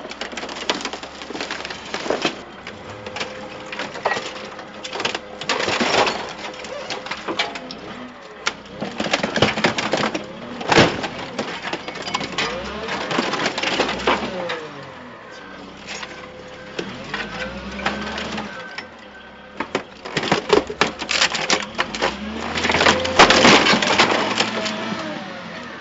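Scrap car bodies being torn apart by loader-mounted engine-puller forks: repeated metal crunching, snapping and screeching as the engines are wrenched out, with the loader's engine running low underneath.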